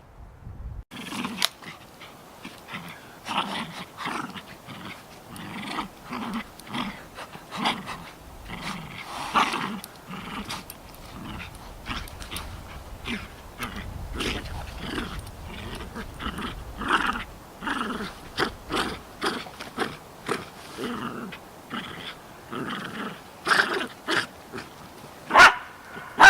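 A dog making short growls and grunts over and over, as in play, starting about a second in, with a few louder ones near the end.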